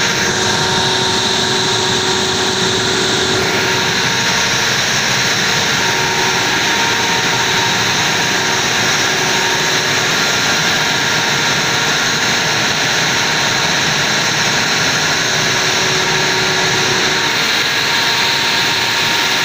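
Large standby diesel generator set running steadily under load after a mains power failure, a loud constant drone with a steady hum.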